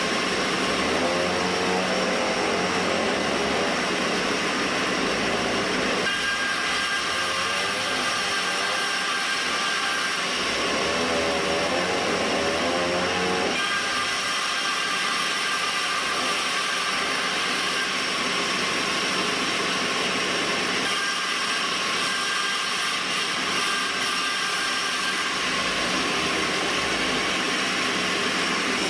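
Sawmill band saw running, a steady hissing noise, with its sound shifting a few times along the way.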